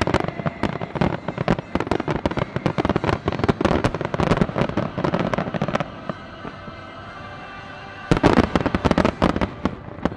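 A rapid volley of fireworks, dense overlapping bangs and crackles, that stops about six seconds in. A second short volley follows about two seconds later.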